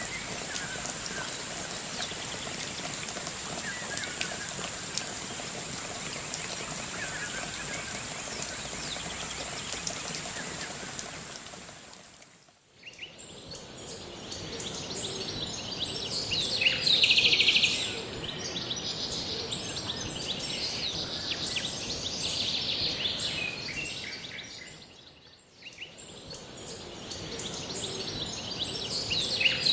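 Rural field ambience: birds calling over a steady high insect drone and a soft hiss. The sound dips and comes back twice, about twelve seconds in and again near the end, and the later stretches have a louder, higher insect drone and stronger bird calls.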